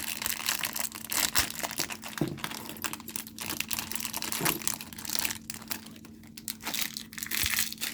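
Plastic packaging crinkling and rustling as it is handled and pulled open, with scattered small clicks; it thins out for a moment about two thirds of the way through.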